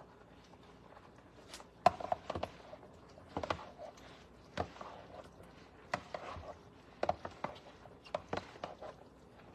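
A series of light knocks and clatters from kitchen work on a countertop, starting about two seconds in and recurring roughly once a second.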